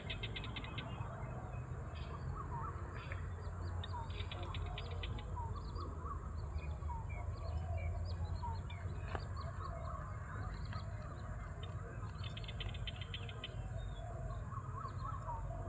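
Birds chirping and trilling outdoors: many short rising chirps and several rapid buzzy trills, over a steady low rumble and a thin steady high whine.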